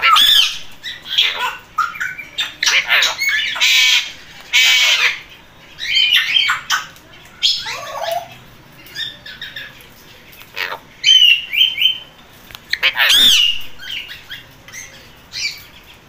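Alexandrine parakeets squawking: a string of short, harsh calls that glide up and down in pitch, with brief pauses between them.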